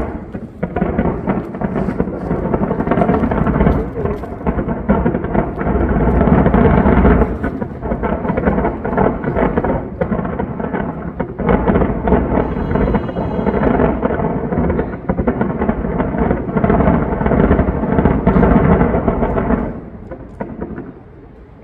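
Fireworks display: a dense, unbroken barrage of overlapping aerial shell bursts that merge into a rolling, thunder-like rumble. The barrage dies down sharply a little before the end.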